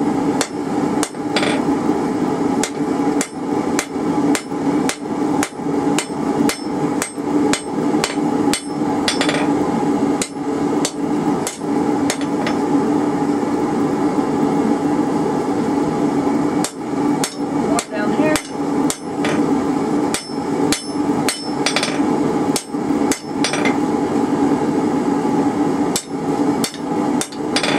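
Hand hammer striking red-hot half-inch rebar on a steel anvil, about two blows a second in a steady rhythm, to straighten a twist out of the bar.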